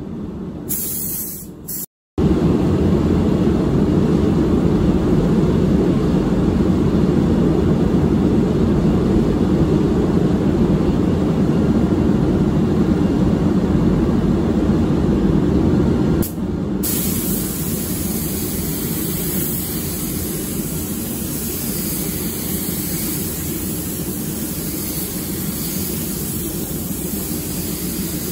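Steady rushing air of a paint booth's ventilation. After a cut about halfway, the steady hiss of a spray gun's air joins it as clear coat is sprayed onto the fender.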